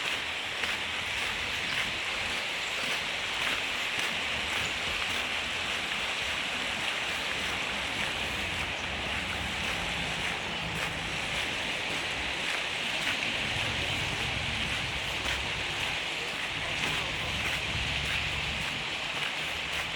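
Steady rushing of water, with intermittent low wind rumble on the microphone through the second half.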